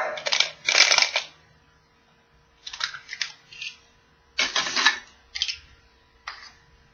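Hard plastic toy parts clicking and rattling as a small plastic capsule is opened and a minifigure is taken out, in several short bursts of handling noise.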